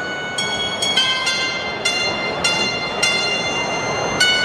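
Electronic music for a dance routine played over an arena PA: a run of short, bright synth chord stabs, about two a second and changing pitch from one to the next, over crowd noise.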